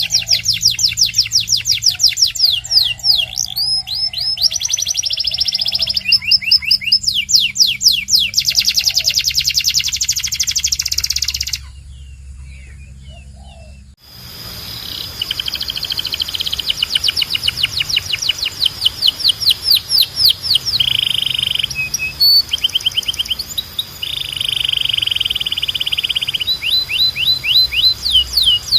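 Domestic canary singing a long song of rapid trills, fast runs of repeated chirping notes. The song breaks off about halfway through and resumes abruptly two seconds later, with a steady low hum underneath.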